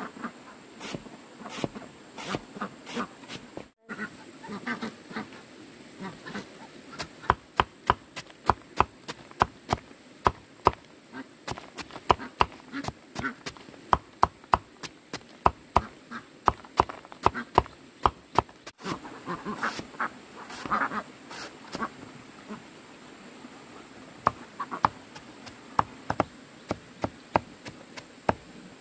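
Sharp knocks or chops struck in quick succession, about two a second and loudest through the middle, with scattered animal calls like duck quacks and a steady high insect buzz.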